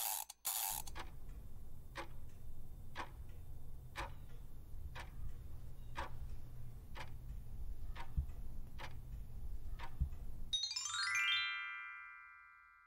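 Quiz countdown timer sound effect: two short swishes at the start, then a clock ticking about once a second over a low droning bed. Near the end it gives way to a quick rising chime run that rings out as the answer is revealed.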